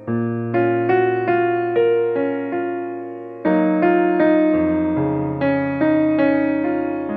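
Background music: a gentle keyboard piano tune, one struck note or chord about every half second over lower bass notes.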